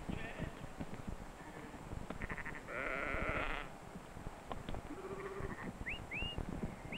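Sheep bleating as a flock is driven by a sheepdog, with one long, wavering bleat in the middle. Near the end come two pairs of short rising whistles, a shepherd's whistled signals to the dog.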